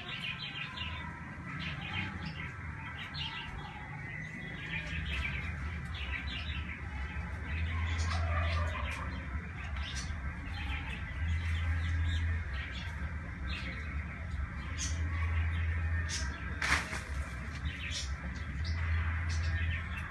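Small birds chirping and calling repeatedly over a low hum that swells every three or four seconds, with one sharp click about three-quarters of the way through.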